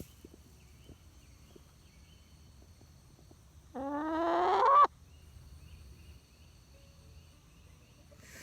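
A chicken gives one loud squawk about a second long, rising in pitch and getting louder before cutting off abruptly.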